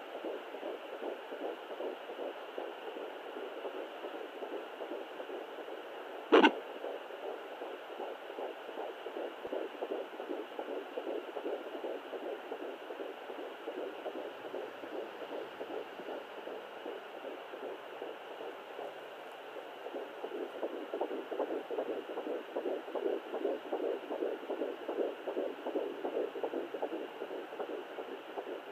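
Sonoline fetal Doppler's speaker playing a fast, whooshing fetal heartbeat at 12 weeks, which the owner thinks may be two heartbeats slightly out of time with each other (twins). The pulsing grows louder in the last third, and one sharp knock about six seconds in is the loudest sound.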